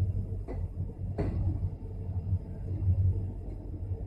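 Low, steady rumble of an Indian Railways passenger train running through a station, heard from inside the coach, with two short sharp knocks about half a second and just over a second in.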